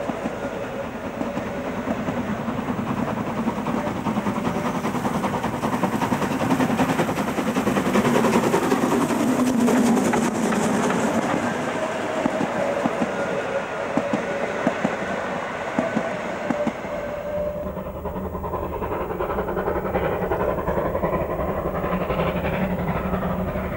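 Steam locomotive working hard as it pulls a passenger train away, its exhaust beating rapidly over the rumble of the coaches on the rails. About two-thirds of the way through the sound turns lower and duller, the sign of the driver notching up the reverser to shorten the cutoff.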